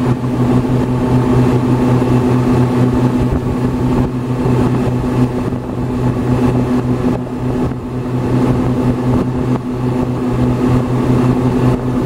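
A ferry's engine droning steadily while under way, a constant low hum over a rushing noise of water and air.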